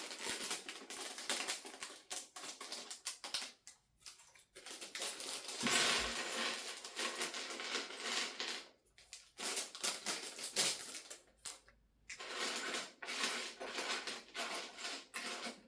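Crinkling of a plastic Lego parts bag being opened and rummaged through, with small plastic pieces clicking and rattling, in stretches with short pauses between them.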